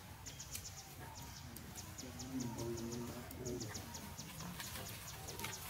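Outdoor forest ambience: short high chirps repeating several times a second, with a low, voice-like call from about two and a half seconds in that lasts about a second.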